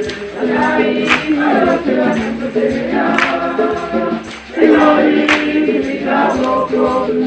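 Choir singing a Swahili gospel hymn, with a tambourine struck about every two seconds.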